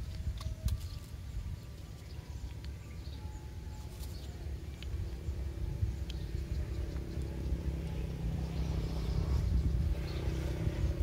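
Outdoor background: a steady low rumble with a motor-like hum that builds up through the second half, a few faint bird chirps, and light clicks.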